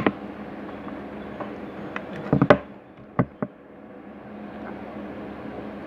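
A few sharp knocks and taps of things being handled: one right at the start, a quick cluster about two and a half seconds in, and two single taps just after, over a steady low hum.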